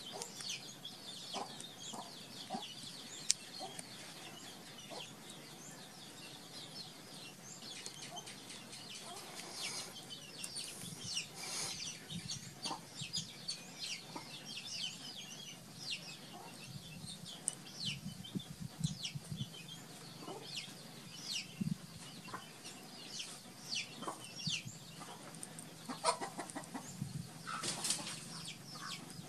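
Chickens clucking, with many short, high chirps scattered throughout that grow busier from about ten seconds in.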